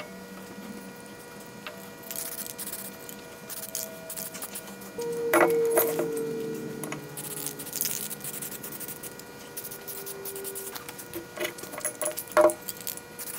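Metal parts of an antique Model T screw jack clanking as they are handled and set on the bench, with a cluster of knocks about five seconds in and a few more near the end. Short hisses of an aerosol spray-paint can come in between.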